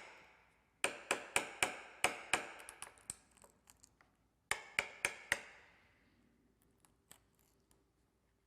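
Hammer striking a 1-inch wood chisel, cutting a shallow mortise into a door edge for a deadbolt's security plate. Sharp ringing blows come at about four a second in two runs, with lighter taps between them, and stop a little past halfway.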